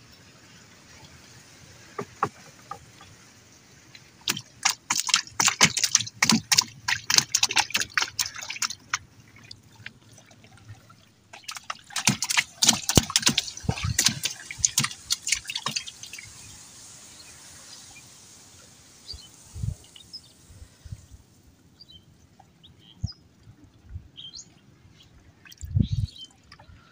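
Water splashing and dripping as a wooden boat is poled through floating water hyacinth. It comes in two dense bursts of crackling splashes, then a few scattered drips and low knocks near the end.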